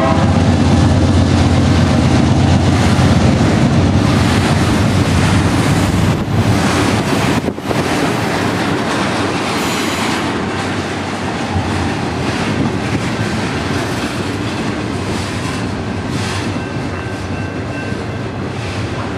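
Freight train passing close by: the diesel locomotives rumble past in the first few seconds, then double-stack container cars roll by with steady wheel-on-rail noise.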